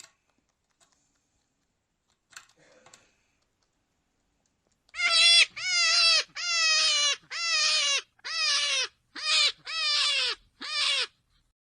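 Rabbit squeals: a run of about eight short, high, wavering cries, each falling in pitch at its end. They start about halfway through, after a near-silent stretch.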